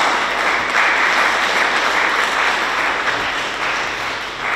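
Congregation applauding, many people clapping together, tapering off near the end.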